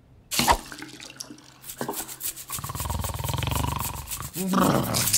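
Cartoon toothbrushing sound effect: fast, rhythmic scrubbing strokes of a toothbrush on teeth. A deep rumble runs under it for about two seconds in the middle.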